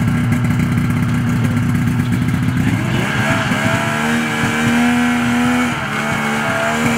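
A 1994 Polaris Indy XLT 600 snowmobile's two-stroke engine runs steadily, then about three seconds in it revs up to a higher, steadier tone that wavers a little in pitch while the sled is worked onto a trailer.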